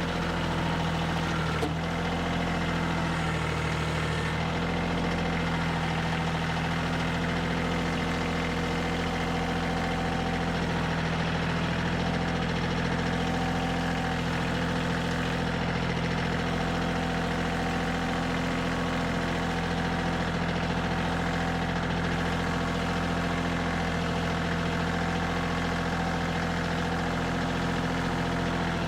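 Kioti CK2610 compact tractor's diesel engine idling steadily.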